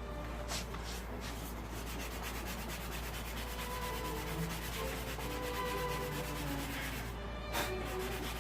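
Sandpaper rubbed by hand over a painted motorcycle fuel tank in rapid, steady back-and-forth strokes, keying the old paint for a fresh coat.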